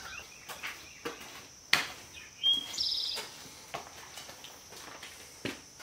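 A songbird singing one short phrase about two and a half seconds in: a clear note, then a buzzy trill. Under it runs a steady high-pitched drone, and there are a few short knocks, the sharpest a little under two seconds in.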